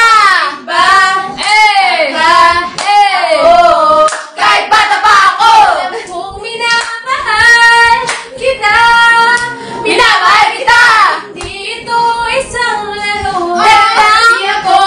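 Several young women singing together, loud, with some long held notes.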